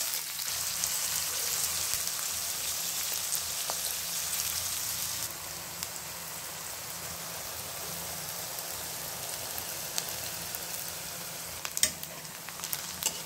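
Sliced onions and green chillies sizzling in plenty of hot oil in a karahi as they are fried down toward brown, stirred with a spatula. The sizzle eases a little about five seconds in, and a few sharp clicks of the spatula against the pan come near the end.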